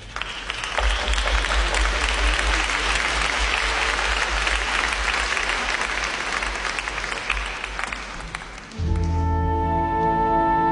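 Audience applauding, then about nine seconds in the applause dies away and an orchestra with strings begins playing held chords.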